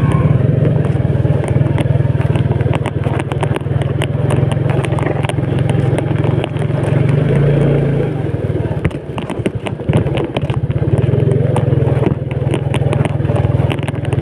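Motorcycle engine running steadily while riding over a rough dirt-and-gravel track, with frequent clatter and knocks from the bike jolting over stones.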